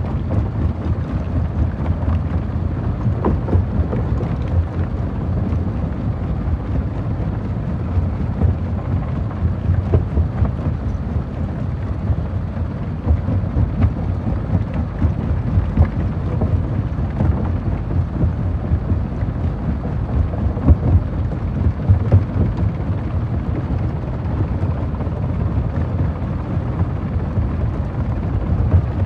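Stone crusher machine crushing rock: a steady low rumble with frequent irregular cracks and knocks of stone breaking.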